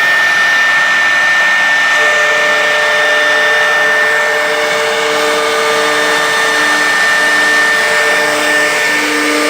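CNC router running: a steady high whine over a constant rushing noise, with lower tones that come and go every half second or so.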